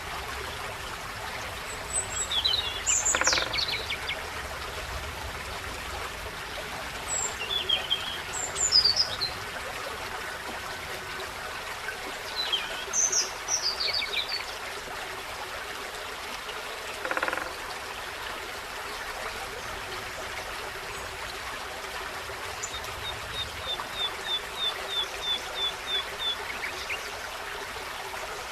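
A forest stream runs steadily while small songbirds call in short, high, quick phrases, three bursts in the first half. Near the end one bird gives a run of about a dozen evenly spaced high notes, roughly three a second.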